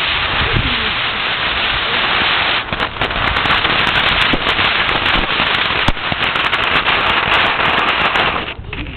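A consumer firework going off with a steady loud hiss. From about three seconds in, dense rapid crackling joins it, and the firework cuts off shortly before the end.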